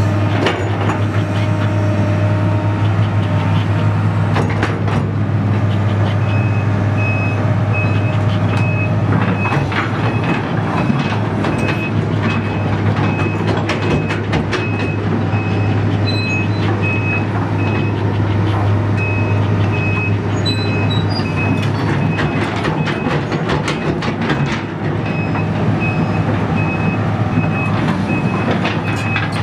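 2004 Link-Belt 330 LX excavator's Isuzu six-cylinder diesel running steadily while the machine moves, with a motion alarm beeping over and over from about six seconds in, pausing briefly twice. Sharp clanks and knocks sound throughout.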